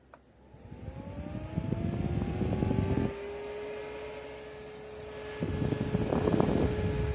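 Small fan motor of an Ontel Arctic Air Pure Chill evaporative cooler switched on with a click, its whine rising in pitch for about two seconds and then holding steady. Two bouts of loud rough rumbling noise come over it, one early and one near the end.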